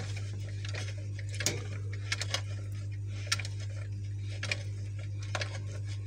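Small irregular clicks and ticks as a screw-base bulb is turned by hand in the threads of a refrigerator's lamp holder, tightening into place, over a steady low hum.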